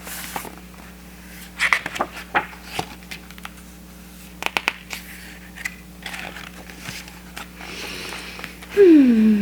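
Paper rustles and small clicks of a picture book being handled, its pages turned. Near the end a loud vocal sound slides down in pitch and then holds.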